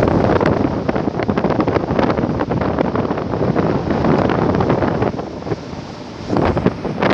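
Wind buffeting the microphone on a moving motorboat, a loud rushing noise with rapid irregular gusts, easing briefly about six seconds in.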